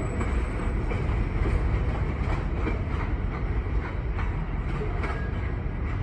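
Freight train rolling away, a steady low rumble with faint wheel clicks over the rail joints.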